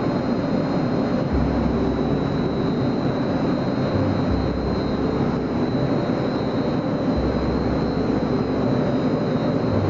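Vibrating screen sieve machine for coal and sand running: a loud, steady mechanical noise with a thin high whine over it.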